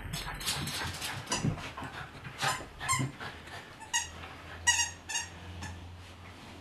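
A squeaky dog toy squeaked about five times in quick succession as a puppy grabs and tugs at it, with scuffling from the rough play.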